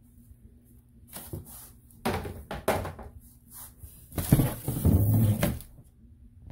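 Plastic Tidy Cats Breeze XL litter-box pan being handled and shifted inside its cardboard box: bumps and scraping of plastic against cardboard in three bursts, the last and loudest starting about four seconds in and lasting about a second.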